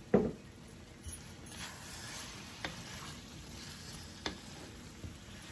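Beef mince and diced raw potatoes frying in a pan, stirred with a wooden spatula: a low sizzle with the spatula scraping through, and a few knocks of wood on the pan, the loudest just at the start.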